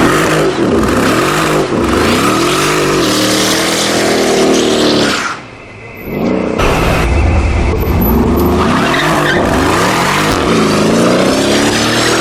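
A car's engine revving hard, rising and falling repeatedly, with tyres squealing and skidding in a burnout. There is a short break about halfway through.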